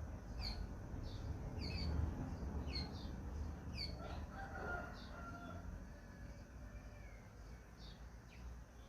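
Small birds giving repeated short, high chirps, with a rooster crowing once about four seconds in, over a low rumble.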